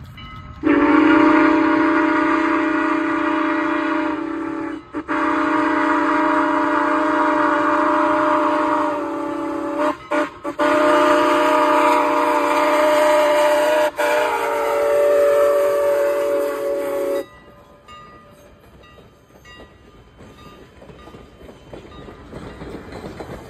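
Steam whistle of Strasburg Rail Road No. 89, a 2-6-0 steam locomotive, blowing several tones at once in long blasts with one short one between them, the long-long-short-long grade-crossing signal. After about 17 seconds the whistle stops and the passing train is heard faintly.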